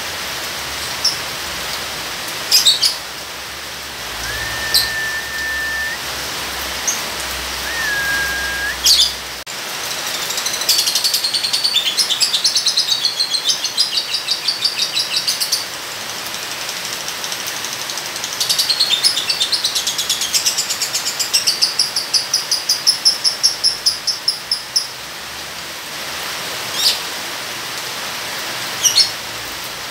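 Lovebird calling over steady rain: single sharp chirps, then two long runs of rapid chattering calls (the 'ngekek' trill) lasting several seconds each, starting about ten seconds in and again about eighteen seconds in. Two flat whistled notes come about four and eight seconds in.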